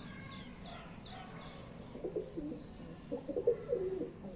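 Domestic cheenay pigeons cooing, repeated low warbling coos starting about two seconds in and growing louder. A few faint high chirps come in the first second and a half.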